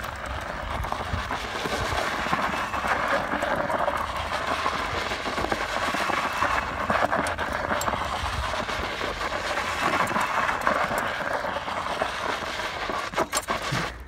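A three-wheeled electric scooter running over loose sandy dirt, its tyres scrubbing and skidding through tight turns: a steady rough noise that drops away near the end, with a few clicks as it stops.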